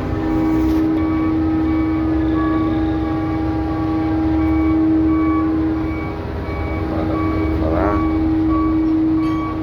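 Heavy cargo-handling machinery running with a steady droning tone over a low rumble, while a high beep repeats at an even pace, about one and a half times a second.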